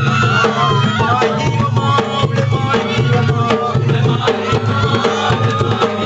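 Live music driven by a two-headed barrel drum beaten in a fast, dense rhythm, with a wavering high melody line above it.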